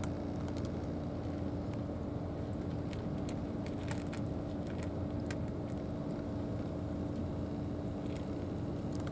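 A steady engine drone with a constant low hum and a rumble underneath, and scattered faint clicks on top.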